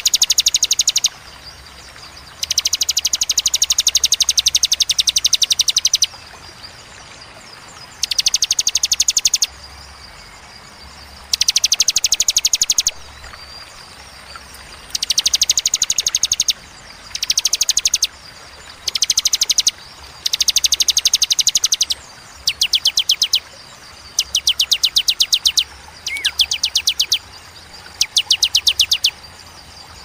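Rapid-fire 'tembakan' song of small prinia-type cici songbirds (ciblek, ciwah and cigun), recorded for birdkeepers' mastering. It comes in about a dozen bursts of very fast, evenly repeated high notes, each burst lasting one to three seconds and broken by short pauses. A faint steady high insect-like whine runs underneath.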